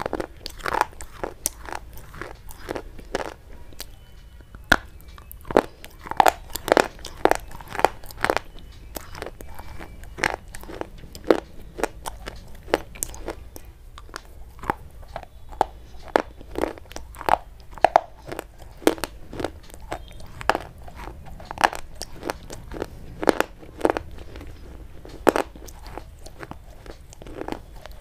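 Close-miked crunching as hard, white, chalk-like sticks are bitten and chewed: sharp, dry snaps and crackles, irregular, about one to two a second.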